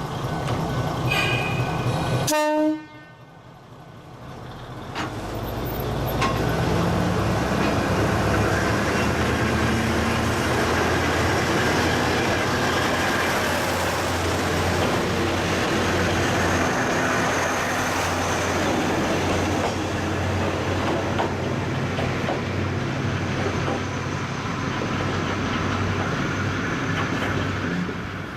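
KiHa 200 diesel railcar: a short horn toot near the start, then a sudden cut. After it the engine builds up with a rising note as the railcar pulls away under power, then runs steadily and loudly for the rest.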